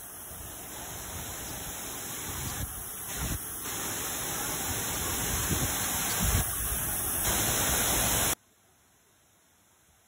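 Waterfall rushing, a steady noise of falling water that grows louder, with a few low thumps. It cuts off suddenly about eight seconds in, leaving near silence.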